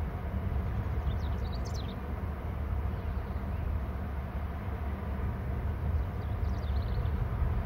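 Wind rumbling on an outdoor webcam microphone. Two brief series of high, thin bird chirps, about a second in and again near the end.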